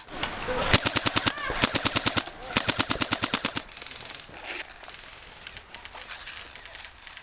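Airsoft guns firing several rapid full-auto bursts in the first few seconds, followed by fainter, scattered shots.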